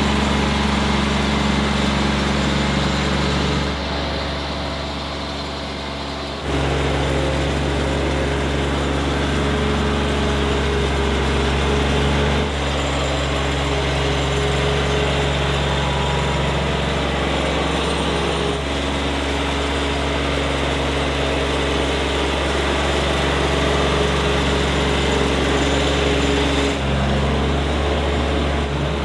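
Tractor engine running steadily under load. It eases off about four seconds in, then picks up again a couple of seconds later, with smaller shifts in pitch further on.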